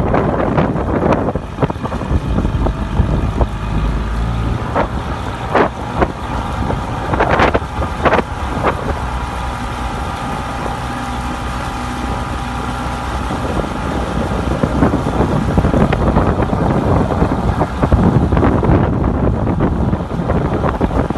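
Wind buffeting the microphone over a motorboat engine running at a steady pace, its hum clearest in the middle. A few sharp knocks come about five to nine seconds in.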